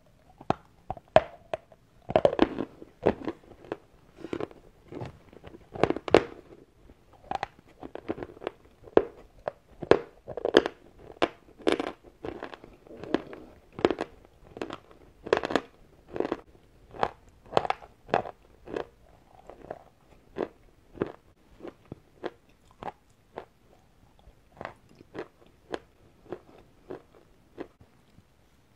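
A person chewing white eating chalk: a steady run of sharp, dry crunches, about one or two a second, louder in the first half and softer later on.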